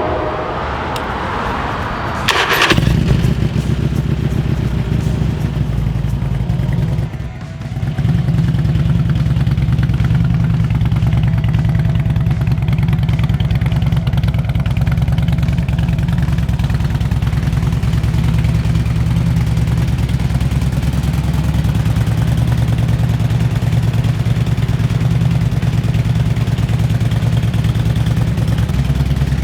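Harley-Davidson Street Glide V-twin engine cranking and catching about two seconds in, then running steadily at idle, with a brief dip about seven seconds in. It now starts and runs with the original fuel pressure regulator refitted in place of a wrong-year one that had been venting fuel and preventing pressure.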